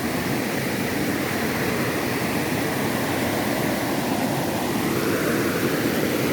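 Waterfall: rushing, falling water making a steady, loud noise that holds throughout.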